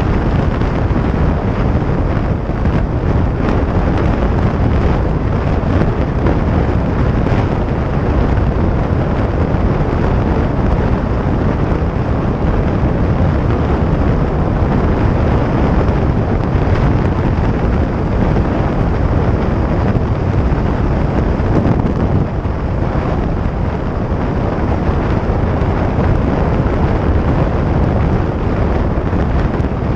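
Steady wind rush buffeting the microphone over the engine and road noise of a 2017 Harley-Davidson Iron 883 motorcycle at highway speed.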